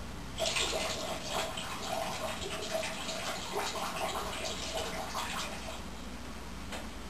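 Water running and splashing, starting about half a second in and tapering off after about five seconds.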